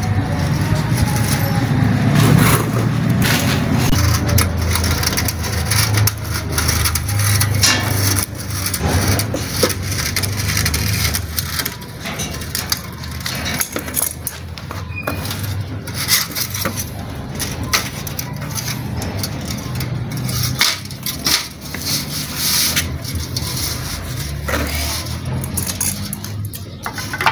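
Irregular knocks, clicks and rustles from handling a room cooler's side frame and wire mesh on a stone floor, over a low steady rumble.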